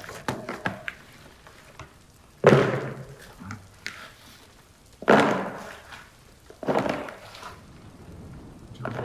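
Three heavy thunks a couple of seconds apart, each dying away over about half a second, with a few lighter knocks near the start.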